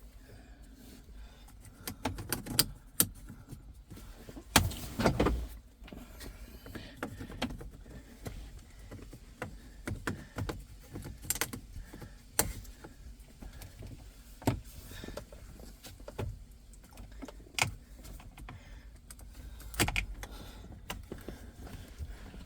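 Irregular clicks, taps and knocks of hand work on car parts, with a longer scraping rustle about five seconds in.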